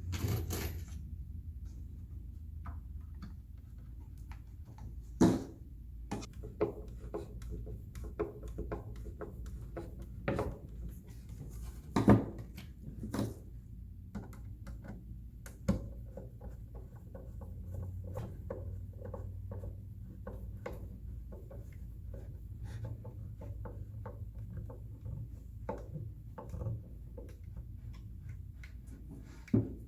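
Scattered light clicks and knocks from the pieces and small screws of a wooden toy dollhouse being handled and screwed together by hand, over a low steady hum.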